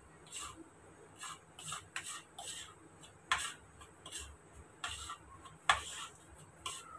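A metal spoon stirring a dry spice mix on a plastic plate, clicking and scraping against the plate in irregular strokes, loudest about a third of the way in and again near the end.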